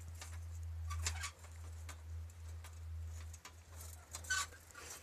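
Quick, uneven footsteps on a dirt trail, over a steady low rumble of wind on the microphone. A brief high squeak about four seconds in is the loudest sound.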